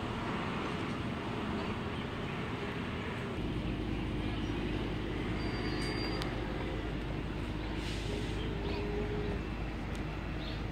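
Steady outdoor background noise with a low rumble that gets louder a few seconds in, and a few short high chirps near the end.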